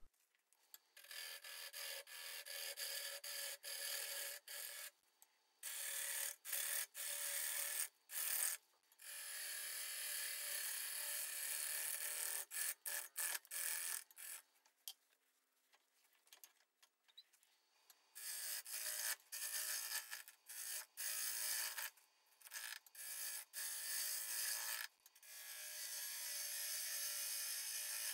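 Turning gouge cutting a spinning green spalted sugar maple bowl blank on a wood lathe: a scraping rush of shavings in repeated passes lasting one to several seconds, with short silent gaps between cuts.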